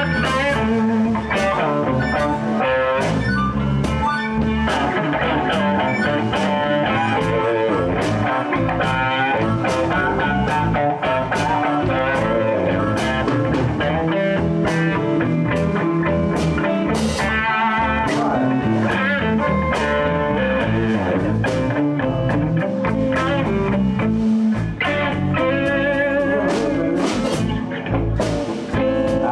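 Live blues band playing: electric guitars over bass and drums.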